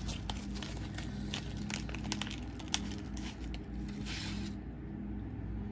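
Small plastic bag of incense sticks crinkling and clicking as it is handled, then a short sniff about four seconds in as the sticks are smelled.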